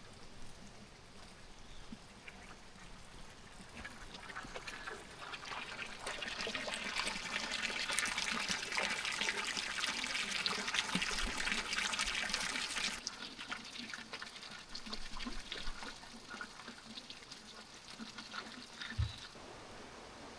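Water trickling and splashing, swelling to its loudest in the middle and then dropping off suddenly. A single soft low bump comes near the end.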